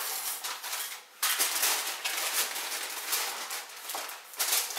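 Aluminum foil crinkling and crackling as it is pressed and crimped down over the rim of a glass baking dish to seal it, with a short pause about a second in.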